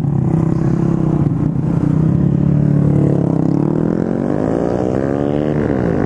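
Honda Grom's small single-cylinder engine through an aftermarket full exhaust, running steadily at first, then revving up over a couple of seconds and dropping sharply near the end.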